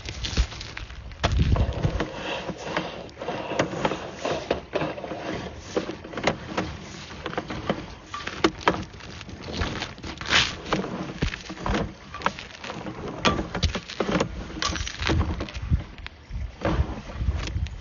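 Irregular knocks, clicks and scraping from a sewer inspection camera's push cable being fed into a drain line.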